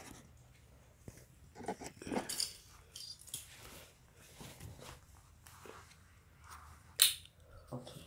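Plastic model-kit parts and sprues being handled on a table: scattered rustling and small plastic clicks, with one sharp click about seven seconds in.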